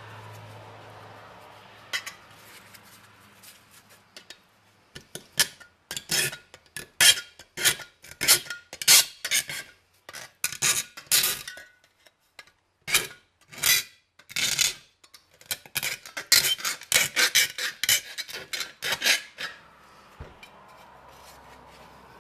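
A metal file scraped in quick, loud strokes, about two a second with a few short pauses, over the snipped edge of a hole in a tin can, pressing the cut sheet-metal edges down rather than smoothing them. The strokes start a few seconds in and stop shortly before the end.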